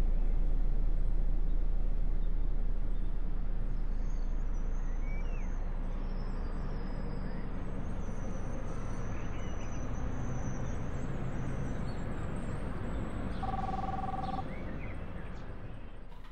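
City ambience: a steady wash of distant traffic noise with a few bird chirps, slowly fading down. Near the end a short two-tone telephone ring sounds faintly, once.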